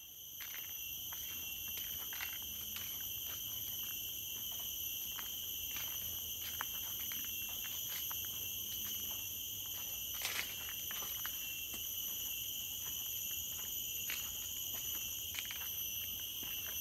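Steady chorus of forest insects, several shrill high tones holding on together. Irregular light ticks sound over it, one or two a second.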